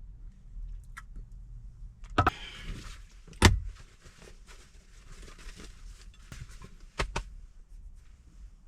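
A few sharp clicks and knocks, the loudest about three and a half seconds in and a close pair near the end, with a light rustle between them: objects being handled inside a car.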